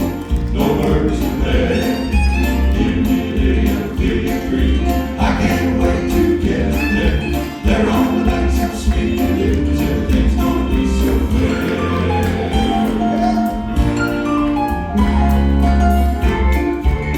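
Southern gospel song: a vocal quartet singing in harmony over an instrumental accompaniment with a heavy bass and a steady beat.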